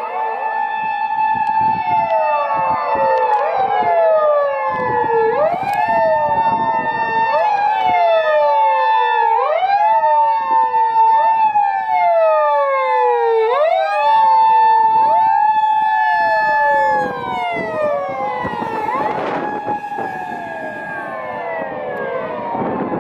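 Several Japanese police patrol car sirens wailing out of step with one another, each rising, holding a high note for a second or two, then falling, over and over. They grow somewhat quieter near the end.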